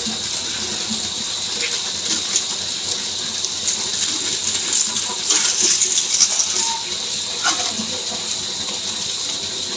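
A steady hiss like running water, with a plastic snack packet crinkling in a short cluster of crackles about halfway through.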